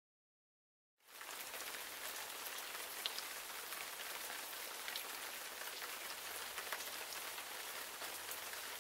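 Steady hiss of water with scattered small drop-like ticks, starting abruptly about a second in.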